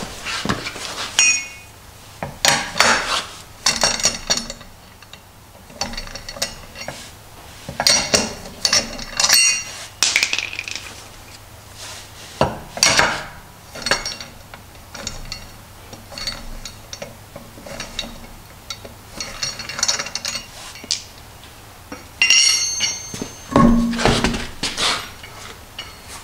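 Hand lug wrench loosening and spinning off the lug nuts of a Z32 Nissan 300ZX's factory alloy wheel: irregular clusters of metallic clinks and clanks as the wrench engages the nuts and the loose nuts knock together. A heavier dull thump comes near the end.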